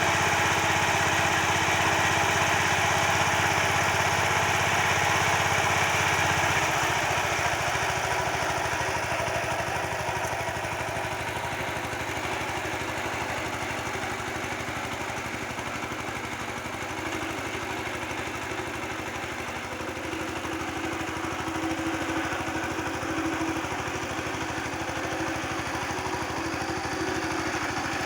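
Tractor engine running steadily, a little quieter and with less low rumble from about seven seconds in.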